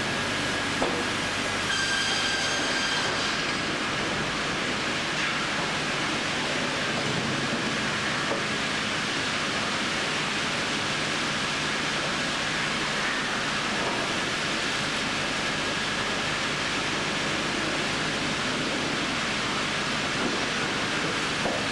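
Industrial bandsaw machinery running steadily, a constant mechanical hum and noise. A brief high whine sounds about two seconds in.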